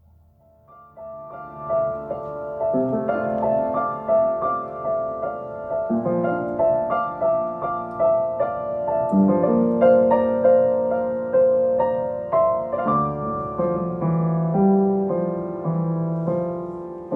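Piano playing a gentle melody over chords. It enters quietly about a second in and then plays on at an even, moderate level.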